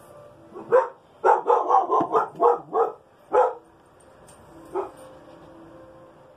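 A dog barking: a single bark, then a quick run of about six barks, then one more, and a fainter bark near the end.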